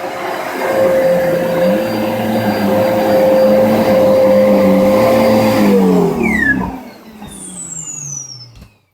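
Dyson DC33 upright vacuum cleaner running on carpet with a steady whine, then switched off about five and a half seconds in, its motor winding down with a falling pitch until it stops.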